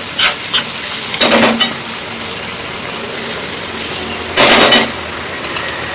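A steel spoon stirs tomato-onion masala frying in oil in a metal kadai. There is a steady sizzle, with a few short scrapes and knocks of the spoon against the pan early on and one louder clatter about four and a half seconds in.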